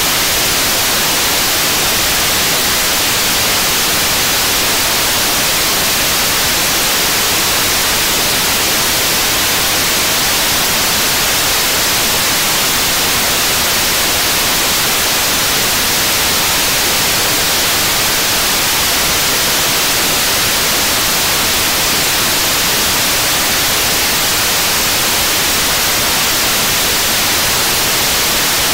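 75-tonne-class kerosene–liquid-oxygen rocket engine in steady hot-fire: a loud, unbroken rush of noise, strongest high up, holding the same level throughout with no change in pitch.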